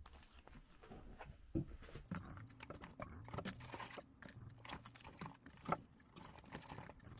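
Rustling and soft clicks of small items being handled and packed into a knit cloth tote bag, with two sharper knocks, about one and a half seconds in and near six seconds in.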